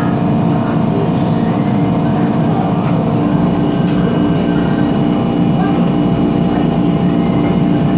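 Steady hum inside an MTR East Rail Line MLR electric train, with a low rumble and a few faint clicks.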